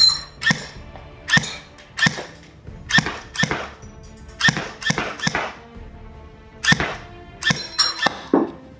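Tokyo Marui H&K USP electric airsoft pistol firing single shots, a sharp thunk roughly every half second to a second and sometimes in quick pairs, over background music.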